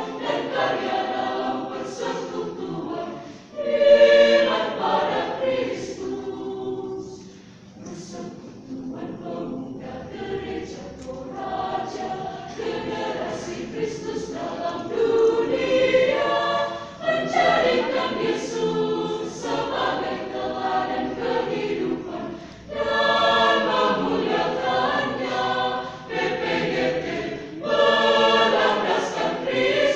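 Mixed choir of women's and men's voices singing a sacred choral piece in phrases, with short breaks between them and the loudest swell about four seconds in.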